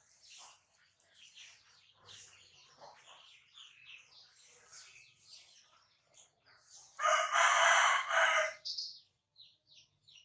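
Small birds chirping steadily with short high notes. About seven seconds in, a loud call in three linked pulses lasts about a second and a half.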